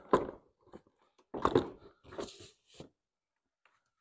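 ATV battery being set down and worked into its plastic battery box: a run of knocks, clunks and scrapes, the loudest about a second and a half in.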